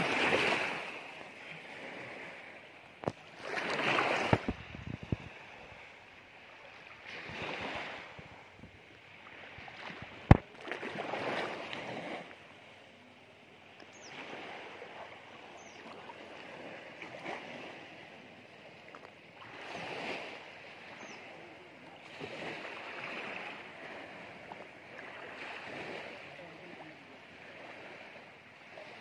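Small sea waves lapping at the water's edge, each swell washing in and fading every few seconds. A sharp knock cuts through about ten seconds in.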